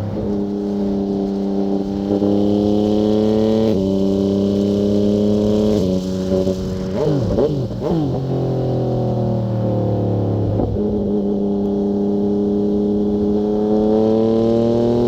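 Yamaha MT-09's three-cylinder engine through a Fuse Caracol exhaust with the dB killer removed, pulling through the gears. The pitch climbs, then drops sharply with upshifts about four and six seconds in. It wavers around seven to eight seconds, holds lower, and climbs steadily again from about eleven seconds.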